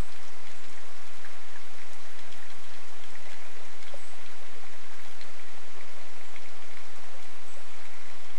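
Steady rain falling, with scattered individual drops striking close by.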